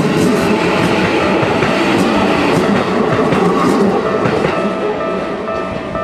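Keikyu Series 1000 electric train passing over a level crossing: wheels rumbling and clicking over the rail joints, the noise easing as the last cars go by about four seconds in. The crossing's warning bell rings steadily throughout and stands out more clearly near the end.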